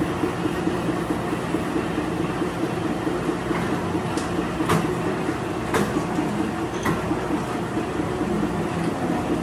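Bakery bread moulder running with a steady mechanical hum. A few sharp clicks and knocks come between about four and seven seconds in.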